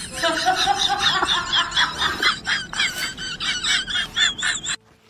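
Domestic cat chattering: a fast run of short, high-pitched chirps, about five a second, that stops abruptly near the end.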